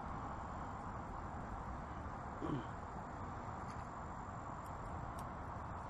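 Crickets and other insects chirping steadily over a low, even background hum, with one brief faint sound about two and a half seconds in.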